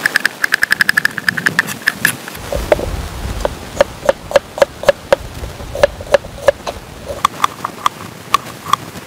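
Chef's knife chopping on a plastic cutting board: a fast run of knocks, about eight a second, for the first two seconds, then slower single cuts, two or three a second. A low rumble sets in about two and a half seconds in.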